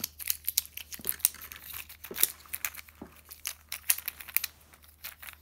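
Infinity cube fidget toy being flipped through its folds in the hand, its blocks and latch hinges making many quick, irregular clicks.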